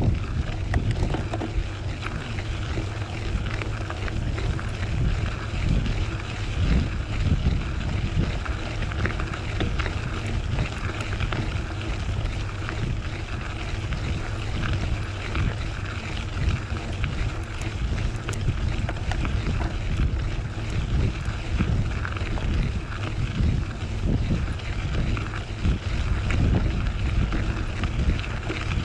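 Wind buffeting the microphone over the rolling noise of a knobby Maxxis Minion DHR II 29x2.6 mountain-bike tyre on gravel, steady and unbroken.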